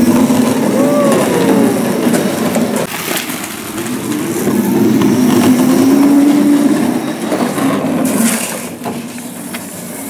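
Wheels of a child's ride-on toy rolling over rough ground, a loud grinding rumble that swells and fades, with a few knocks, growing quieter near the end.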